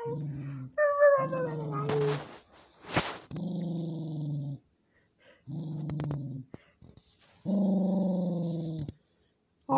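Small dog growling in repeated low bouts about a second long with short gaps between, a guarding growl over a plush toy. About a second in, a falling whine rides over the growl.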